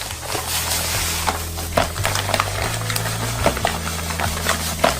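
Granulated sugar pouring in a steady stream into a large pot of egg yolks, a continuous hiss with scattered small clicks, over background music with a low bass line.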